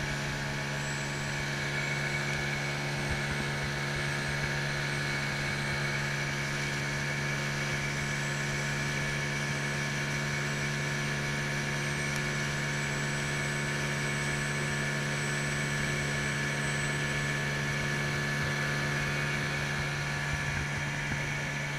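Outboard motor of a small open boat running at a steady speed under way: a constant, even engine drone with no change in pitch.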